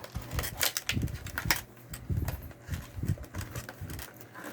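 Trading cards and their plastic packaging being handled on a table: a quick, irregular run of crinkles, clicks and soft taps.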